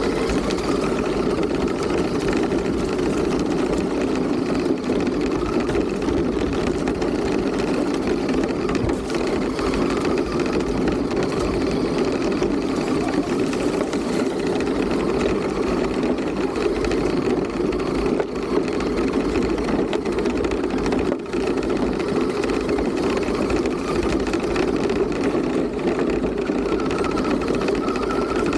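RC car running, heard from a camera mounted on the car itself: a steady whir of its motor and drivetrain.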